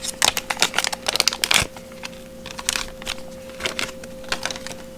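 Small plastic zip bags crinkling and plastic camera buckle mounts clicking as they are handled and unpacked, in irregular bursts of short clicks and rustles. A faint steady hum sits underneath.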